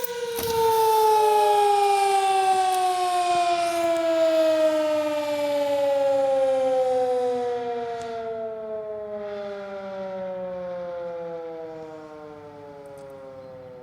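Sterling M-5 outdoor warning siren (16/16 port) winding down: its wail slides steadily lower in pitch and fades as the rotor spins down.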